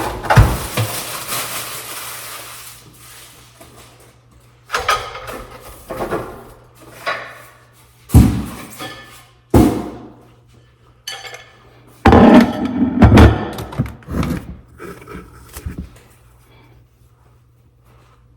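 Household handling and assembly noises: a rustling, scraping stretch with knocks at the start, then a series of separate knocks, thuds and scrapes, heaviest about twelve to fourteen seconds in. The knocks ring in a bare, echoing room.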